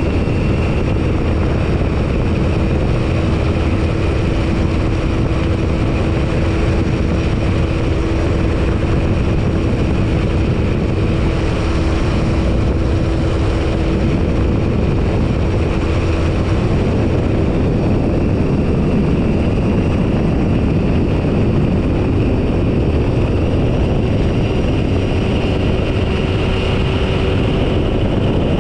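Phantom ultralight's engine and propeller running steadily in flight, heard from a tail-mounted camera with heavy airflow rush over the microphone.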